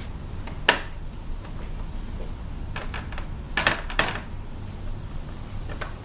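A few sharp clinks of hard objects knocking together: one about a second in, then two in quick succession near the middle. A low steady hum runs underneath.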